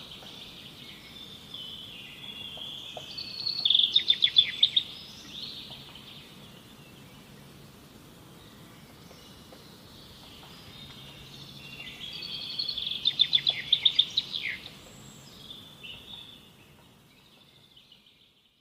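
A bird singing two long phrases about nine seconds apart, each building up and ending in a loud run of rapid, high chirping notes, over faint outdoor background noise. The sound fades out near the end.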